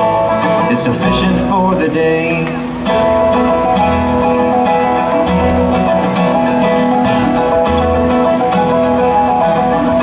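Bluegrass band playing an instrumental passage, with no singing: fast-picked acoustic guitar and other plucked strings over sustained held notes.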